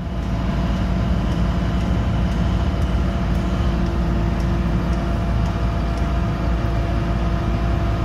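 Heavy construction plant running close by: the diesel engines of a piling rig and an excavator, a steady low drone with a constant hum on top.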